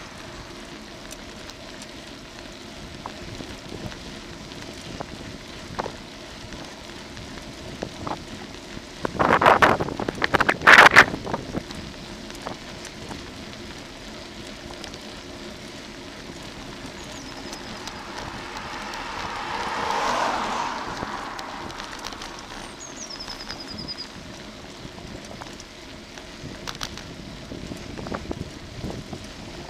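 Bicycle ride heard from a camera mounted on the bike: steady tyre and road noise with wind on the microphone. A burst of loud rattling jolts comes about nine to eleven seconds in, and a louder whoosh swells and fades around twenty seconds in.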